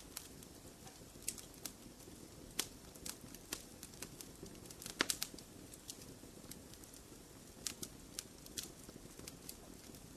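Fireplace fire crackling over a low steady rumble, with irregular sharp pops and a quick cluster of louder pops about halfway through.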